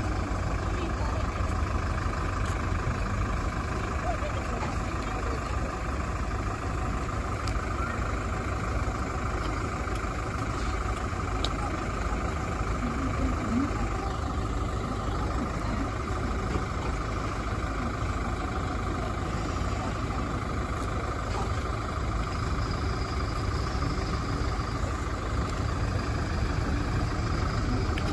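Fire trucks queued in a slow convoy, their engines idling with a steady, even rumble.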